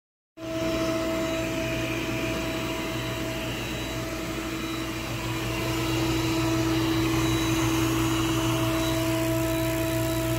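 yeedi vac x robot vacuum running: its suction motor gives a steady whir with a high, constant whine, starting abruptly just after the beginning.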